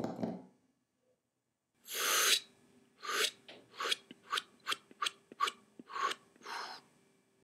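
A longer hissy swish about two seconds in, then a quick run of short hissy swishes and snips, roughly two a second, over a faint steady hum.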